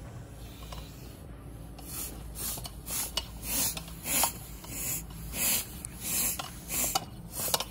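Bicycle hand pump worked in quick strokes, each stroke a short rush of air, about one every two-thirds of a second, starting about two seconds in. The inner tube is being inflated to find its puncture.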